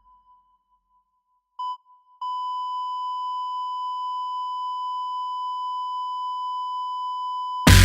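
Electronic beep tone: a short beep, then a steady unbroken tone that begins about two seconds in and holds for over five seconds. It cuts off near the end as loud music comes in.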